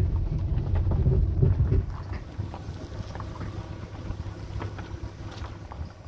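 Wind buffeting the microphone with a loud low rumble for about the first two seconds, then easing. After that, scattered footsteps on a dirt path can be heard over light wind noise.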